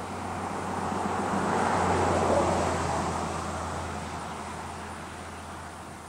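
A road vehicle passing by: engine and tyre noise swelling to a peak about two seconds in, then fading away.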